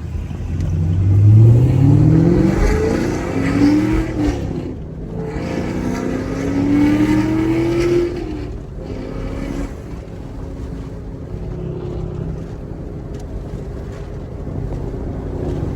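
Chevrolet Camaro SS 1LE's naturally aspirated 6.2-litre V8 accelerating through the gears of its manual gearbox. The engine note climbs in pitch, breaks and drops at upshifts about two and a half, five and eight seconds in, then settles into a steadier, quieter drone at cruise.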